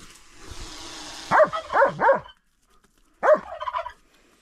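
Dog barking: three quick barks about a second in, then one more a second later.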